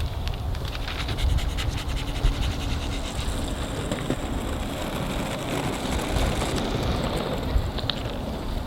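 Wind buffeting the microphone, a steady low rumble, with scattered small clicks and scratching.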